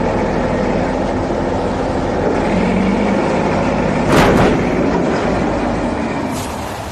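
A heavy vehicle engine running steadily, with a short loud burst about four seconds in.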